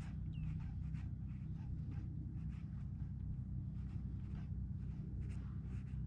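Small water slaps and ticks against a kayak hull, scattered and irregular, over a steady low rumble of wind on the microphone.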